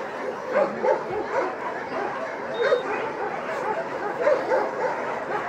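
Several dogs barking and yipping: many short, overlapping barks at different pitches, one after another.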